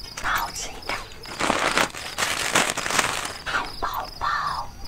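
Paper food wrappers rustling and crinkling as they are handled, in several bursts.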